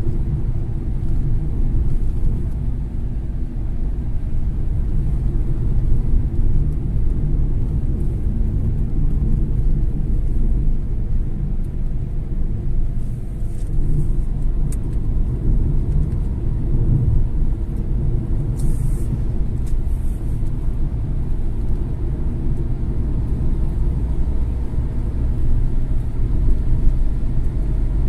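Steady low rumble of a car driving at highway speed, with road and engine noise heard from inside the cabin.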